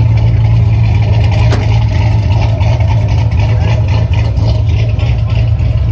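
Car engine with a loud aftermarket exhaust idling, a steady deep rumble loud enough to drown out another running car.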